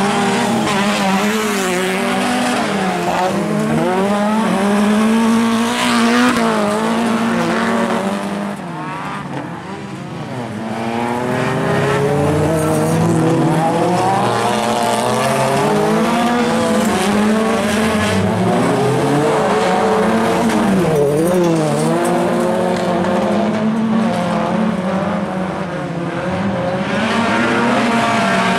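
Several rallycross cars with engines of up to 1600 cc racing together on a loose-surface track. Their overlapping engine notes keep revving up and dropping back through gear changes and corners. The sound is briefly quieter about nine seconds in.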